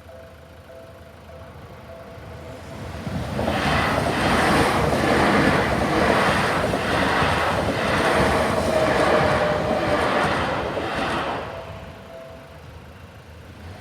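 Level-crossing warning bell sounding a deep, steady repeating two-tone ding, then a Seibu Ikebukuro Line train passing through the crossing for about eight seconds with a rhythmic clatter of wheels over the rail joints. The bell is heard again briefly as the train clears, then stops.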